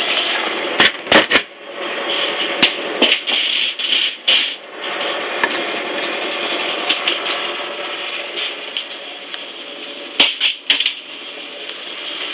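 The small engine of a gardening power tool running steadily, with scattered knocks and rubs from the phone being handled, in clusters about a second in, around three to four seconds in and near the end.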